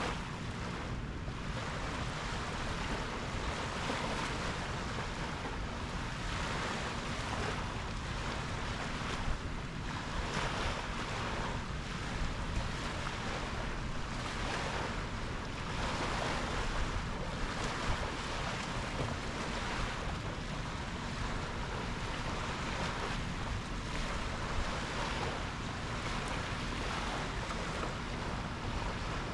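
Sea waves washing and breaking in a continuous surge that swells every few seconds, with wind rumbling on the microphone.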